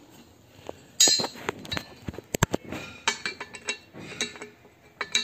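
Metal clinking as a steel motorcycle leg guard and its zinc-plated bolt clamp are handled and knocked together: a sharp clink about a second in, then a run of light clinks and taps.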